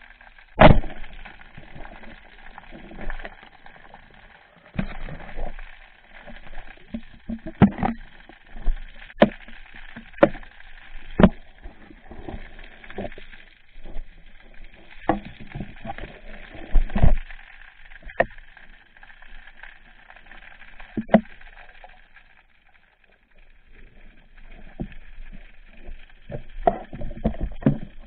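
Underwater handling noise picked up by a speargun-mounted camera: irregular hollow knocks and clicks of gear against the housing over a steady hiss, the loudest knock about a second in.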